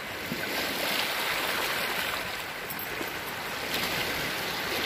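Sea waves washing over a rocky shore: a steady rushing wash that swells a little about half a second in.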